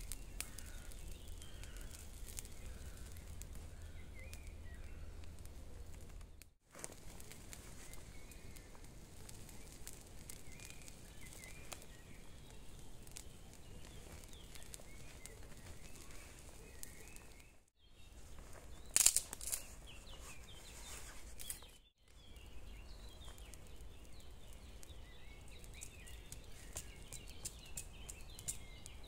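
Woodland ambience with small birds chirping here and there, over faint scattered crackles and a low rumble. A brief louder rustle comes about two-thirds of the way through, and the sound drops out for a moment three times.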